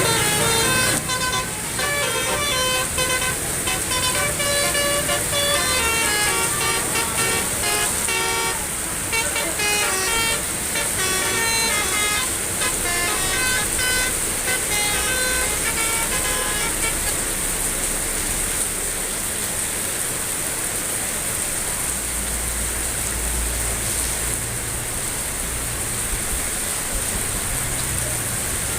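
Bus telolet horn, a multi-note musical horn, playing a fast tune of short stepped notes that stops about 17 seconds in. After that only a steady hiss remains, with a low rumble joining near the end.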